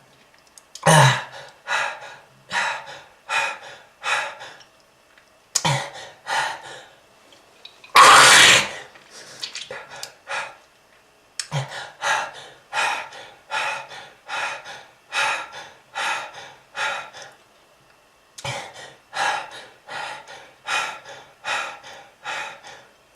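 A smoker's hacking cough: a person coughing over and over in fits, with short pauses between them and one longer, louder cough about eight seconds in.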